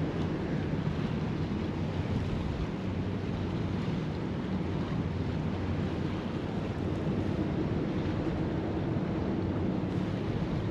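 Steady wind rumbling on the microphone, with the wash of waves on the water beneath it.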